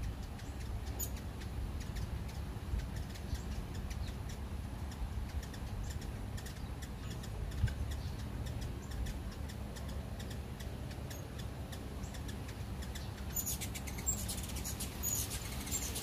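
Hummingbirds giving short, high chip notes, scattered at first and then in quick clusters over the last few seconds, above a steady low rumble.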